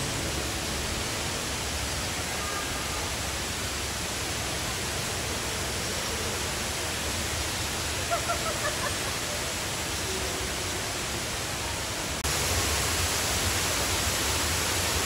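Steady rushing noise, like flowing water, with a brief high voice about eight seconds in; the noise steps up suddenly in loudness near the end.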